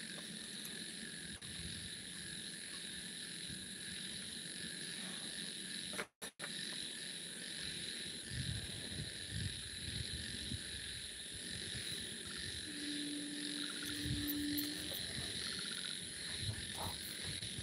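Steady high-pitched chirring background, with a few soft low thumps in the second half and a brief low hum about thirteen seconds in.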